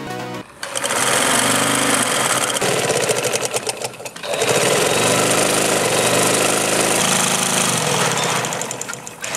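Motor-driven sewing machine running at speed, the needle stitching with a fast, dense clatter. The motor's pitch rises and falls, with a brief dip about four seconds in and again near the end.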